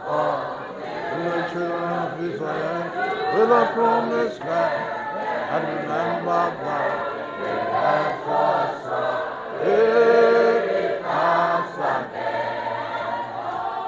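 A church congregation's mixed choir singing together in chorus, led by a woman beating time with a baton. The voices swell loudest about ten seconds in.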